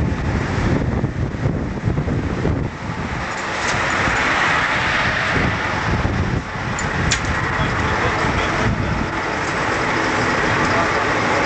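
Wind buffeting the camcorder microphone on a ship's open deck, over the steady rush of the ship's machinery; the rushing hiss grows louder about three and a half seconds in.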